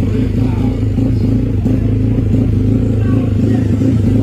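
450cc DOHC drag-bike engine running at a steady speed, with a fast, choppy exhaust beat likened to a helicopter.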